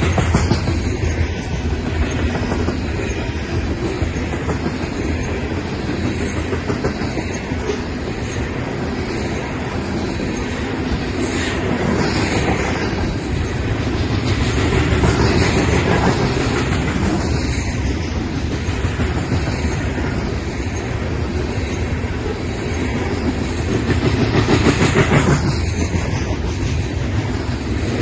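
Loaded freight cars rolling past, a steady rumble of wheels on rail with a repeating clickety-clack as the wheels cross rail joints, swelling louder in places as groups of trucks go by.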